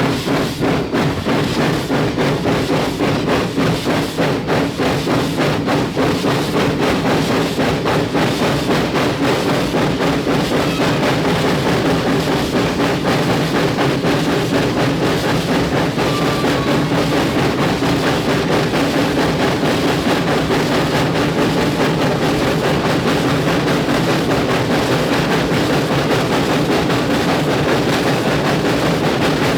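Arcade & Attica 2-8-0 steam locomotive No. 18 working, its exhaust beating out rhythmic chuffs, about three a second at first and quickening steadily as the train gathers speed.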